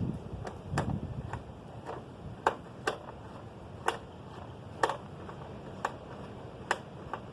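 Irregular sharp clicks and taps, about a dozen, from hands and tools working at a stubborn motorcycle turn signal to get it off.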